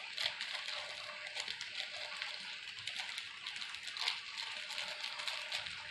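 Faint rustling and small clicks of a small plastic package as a 10/0 circle hook is worked out of it by hand, a little louder around four seconds in.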